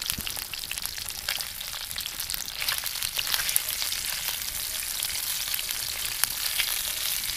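Bacon sizzling in hot grease in a cast-iron skillet, with a steady crackle and many sharp little pops, as a spatula stirs and turns the strips.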